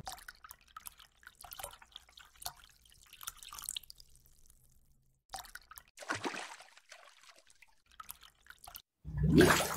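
Water sound effects from a fishbowl: scattered faint drips and small plops, then a louder watery sound with rising pitch near the end.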